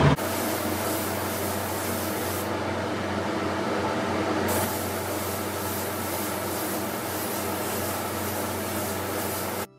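Gravity-feed paint spray gun spraying a steady hiss of atomising air and paint, over a steady low hum. The highest part of the hiss drops out for about two seconds partway through.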